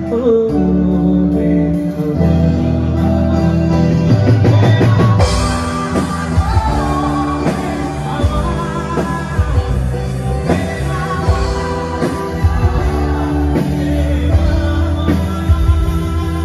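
Live rock band music: electric guitar over bass and drums, with the drums and cymbals coming in hard about five seconds in and a steady beat after that.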